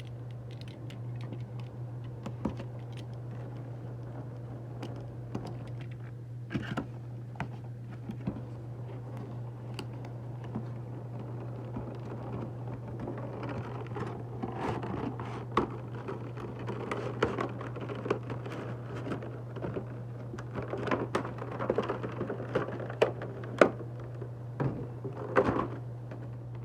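A toy's cardboard box and packaging being handled and opened by hand: scattered taps, clicks and rustling, busier in the second half, with one sharp click near the end. A steady low hum runs underneath.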